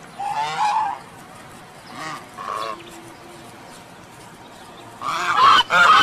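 Domestic brown Chinese geese honking. There is one call near the start, two shorter ones around two and a half seconds in, and a louder pair of honks near the end.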